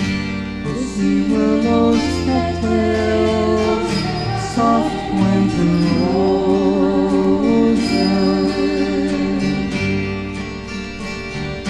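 Folk song's instrumental passage between sung lines: guitars with a bass line underneath.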